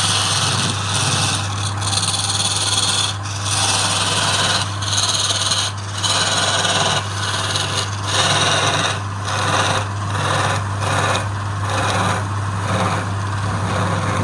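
Wood lathe running with a steady motor hum while a tool or sandpaper is worked against the spinning coconut-box workpiece in repeated scraping passes, each broken by a short pause.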